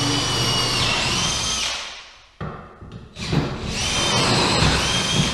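Hand-held electric drill with a half-inch bit boring bolt holes through plywood, its motor whining steadily. The motor runs down and stops about two seconds in, followed by a short knock, then spins up again and runs until it winds down near the end.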